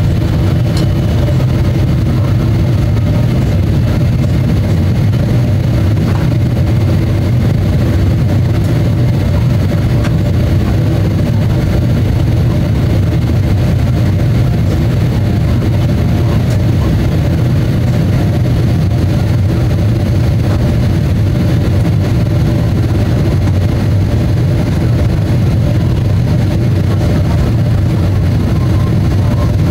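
Steady in-flight cabin drone of a Boeing 777-300ER on approach, heard inside the cabin: a loud low rumble of airflow and its GE90-115B turbofan engines, with a few steady hums over it.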